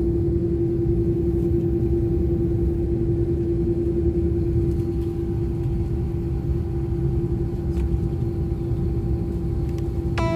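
Airliner cabin noise: a steady low rumble with one constant hum above it.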